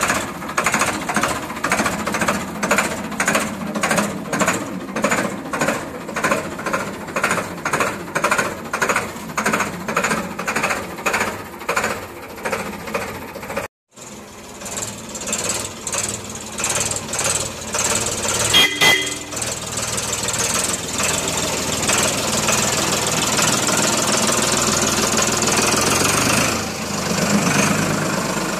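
Ford 3600 tractor's three-cylinder engine running, with a heavy pulsing beat about twice a second. After a short break it runs steadier and louder as the tractor drives, with one sharp click partway through.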